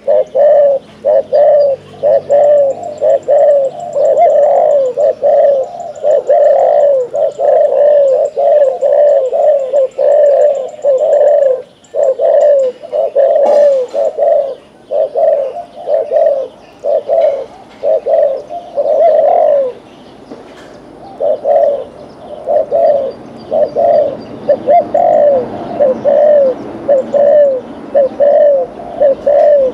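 Spotted dove cooing in a long run of short, repeated coos, about two a second, with brief breaks about twelve and twenty seconds in.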